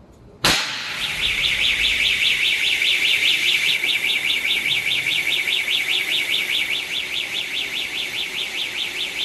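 Wet chemical kitchen fire suppression system actuating: a sharp pop about half a second in as the heat sensing tube bursts, then a loud, steady hiss of agent discharging onto the burning cooking oil. From about a second in, an electronic fire alarm sounds a fast warbling tone, about five sweeps a second.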